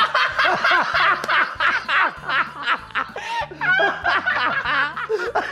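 A man and a woman laughing heartily together, in quick, overlapping peals.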